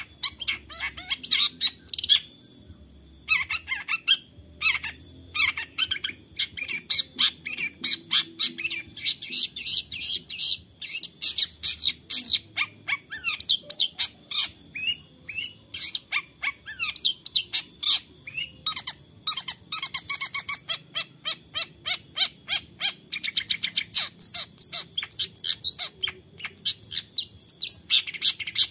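Caged long-tailed shrike (cendet) singing a fast, nearly unbroken run of short chirping and squeaky notes, packed with mimicked snatches of other birds' songs (isian), with a brief pause about three seconds in.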